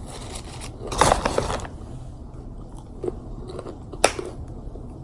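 Close-up chewing of a fried chicken sandwich, with a louder crunchy stretch about a second in and a sharp click near the end.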